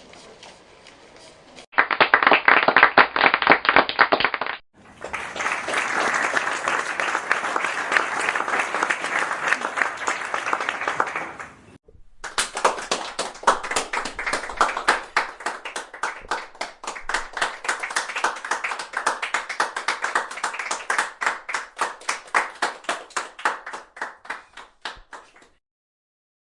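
Clapping and applause in separate spliced recordings: a faint stretch, then a short burst of loud dense clapping, then several seconds of steady crowd applause. After a short gap comes a smaller group clapping, with the individual claps easy to pick out, which stops near the end.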